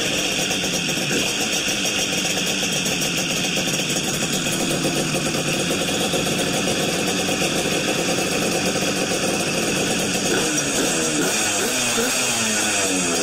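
Tohatsu 9.9 hp two-stroke outboard powerhead with tuned expansion-chamber exhaust pipes, running loud on its test start. From about ten seconds in, its pitch swings up and down as it is revved.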